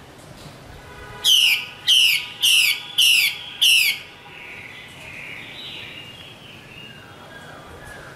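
Female Chinese hwamei calling. It gives five loud, sharp notes about half a second apart, each falling in pitch, then a softer, wavering warble.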